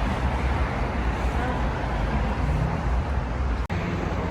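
Street traffic noise: a steady low rumble of passing vehicles, which cuts out for an instant about three and a half seconds in.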